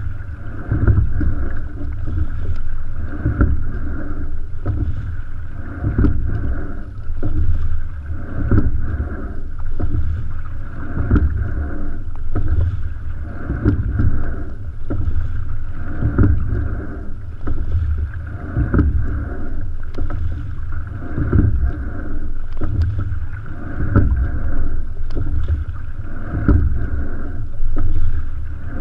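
Single racing scull under oar: water rushing along the hull with wind rumbling on the microphone, and a brief knock and splash at each stroke, about every two and a half seconds, a steady-state training pace.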